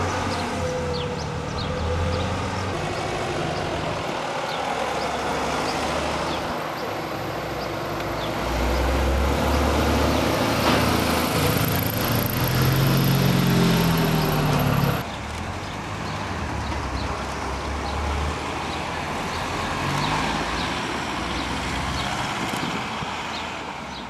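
Cars and a motorcycle driving past one after another, their engines running. Near the middle an engine revs up with rising pitch as it pulls away. The sound drops off suddenly about fifteen seconds in and gives way to further car engines going past.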